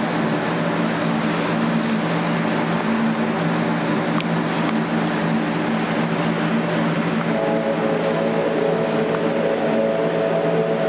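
Ambient drone music: sustained low tones over a steady hiss, with higher held notes joining about seven seconds in.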